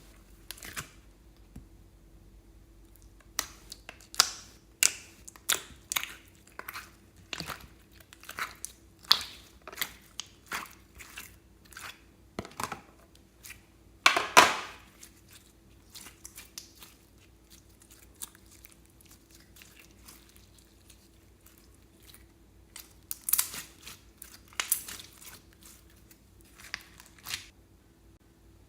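Glossy slime being kneaded and squeezed by hand: irregular sticky pops, clicks and crackles, with a longer, louder squelch about halfway through and a quick cluster of pops near the end.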